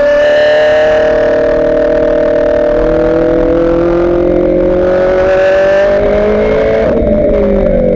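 Ferrari F430 GT race car's V8 engine, heard from inside the cockpit, pulling hard under acceleration with its pitch rising steadily. About seven seconds in, the engine note breaks and drops.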